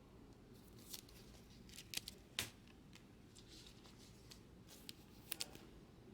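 Trading cards being slid into plastic sleeves and toploaders: faint plastic rustling with a handful of sharp clicks, the loudest about two seconds in and again near the end.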